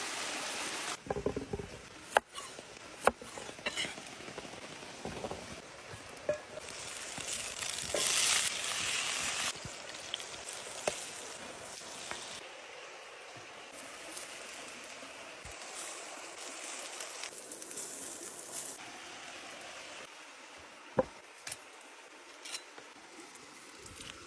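Cooking sounds: food sizzling as a steady hiss, with scattered clinks and knocks of utensils.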